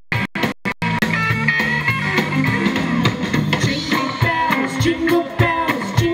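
Live rock band playing: electric guitar, drum kit and a singer. The first second is choppy, broken up by short gaps, then the music runs on without a break.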